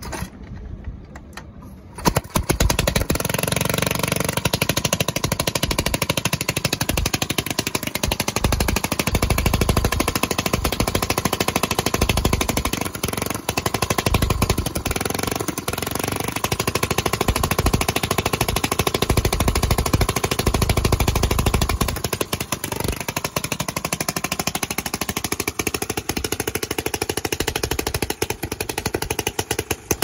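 1909 Waterman 'Coughing Sarah' antique rowboat motor catching about two seconds in and then running loud with fast, hammering firing, its speed dropping and picking up again a couple of times. It runs on a stand with the propeller out of the water.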